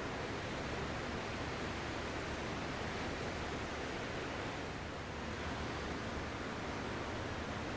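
Ocean surf: a steady, even wash of breaking waves with no distinct swells, easing slightly about five seconds in.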